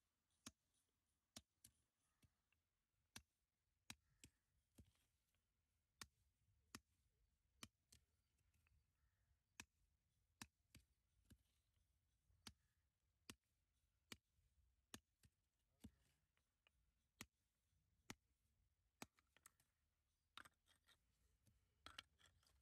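Small hand hammer striking blocks of Sadarahalli white granite as they are split into wall-cladding pieces: faint, sharp taps at an uneven pace of roughly one a second.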